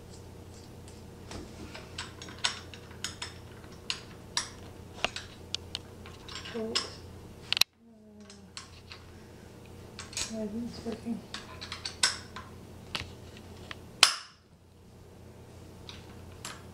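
Small metal bolts and Allen keys clinking and clicking against each other and the bench's metal legs as a bolt is fitted into the leg holes by hand: a string of sharp, irregular clicks, breaking off abruptly twice.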